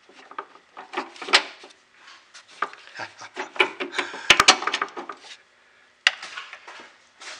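Small metal clicks, taps and scraping as a bolt held on a magnetic pickup tool is worked down beside a car battery, with one sharp knock about six seconds in.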